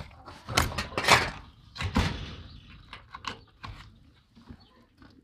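Several knocks and rattles, the loudest about a second in and again at two seconds, followed by lighter clicks.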